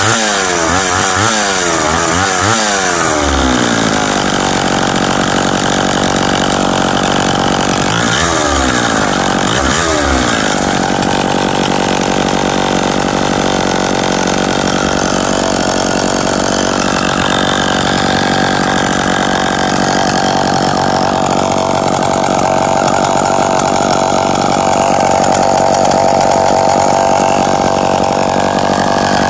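Vintage Sears Easy Start Power Sharp two-stroke chainsaw engine running, revved up and down in quick repeated blips for the first few seconds and again about eight seconds in, then left running at a steady speed. It runs cleanly: a good runner.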